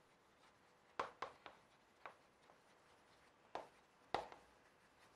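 Chalk writing on a chalkboard: about six short, separate chalk strokes and taps, spaced irregularly, with quiet between them.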